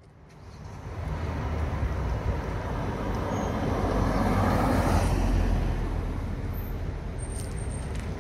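Street traffic noise fading in over the first second, with a car passing by that swells to its loudest about halfway through, then the steady hum of traffic.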